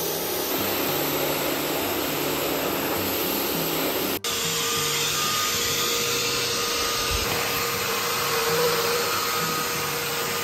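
Electric pressure washer spraying water onto a plastic cargo cover for about four seconds. Then, after a cut, the motor of a Bissell Spot Clean Auto-Mate carpet and upholstery cleaner runs steadily with a whine while its hand tool is drawn across the cover's carpet, sucking up water.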